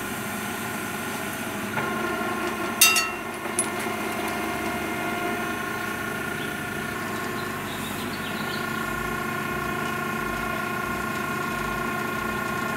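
Jurret 40-ton hydraulic ironworker running steadily, its 3 HP motor and hydraulic pump giving a constant hum. A light knock and then a sharp metallic bang with brief ringing come about three seconds in as a punch goes through the steel plate.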